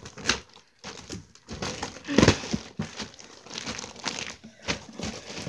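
Thin clear plastic bag being crinkled and pulled open by hand: irregular crackling rustles, loudest about two seconds in.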